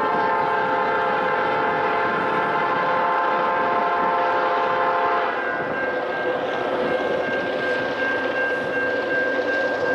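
Locomotive air horn blowing one long chord of several notes, stopping about five seconds in, over the steady ringing of a railroad crossing bell.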